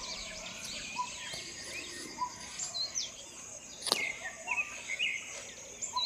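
Several birds chirping and calling, with quick high chirps and one bird repeating a short, lower note about once a second. A single sharp click comes about four seconds in.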